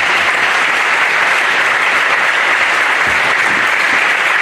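A congregation applauding: steady, sustained clapping.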